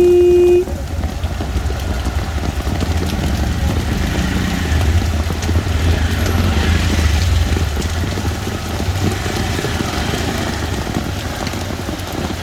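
Rain on a city street with motor vehicles running, a steady low rumble under the hiss of the rain. A short, loud horn beep sounds right at the start.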